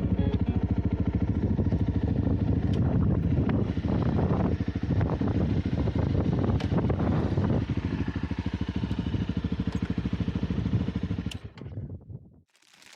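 Honda CRF250 Rally's single-cylinder engine running with a steady, rapid firing pulse, then stopping near the end.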